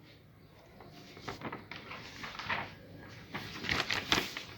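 Faint, scattered clicks and rustles, a few stronger ones close together near the end.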